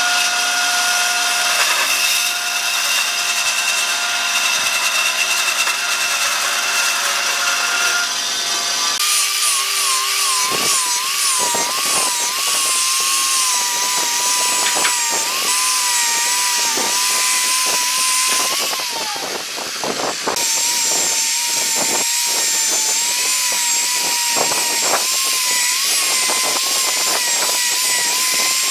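A bandsaw running and cutting through a section of solid wood log. About nine seconds in it gives way to an angle grinder with a sanding disc sanding a wooden rail, its whine dipping and wavering in pitch as it is pressed against the wood, over scraping clicks.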